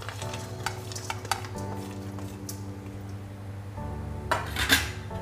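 Grated dry coconut being tipped and scraped out of a steel bowl into a steel kadhai of melted ghee: light metal clinks and scrapes, then a louder clatter and scrape about four and a half seconds in.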